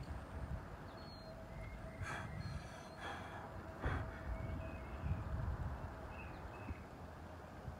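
A lifter taking three sharp, forceful breaths about a second apart as he sets up for a heavy deadlift, over low outdoor rumble.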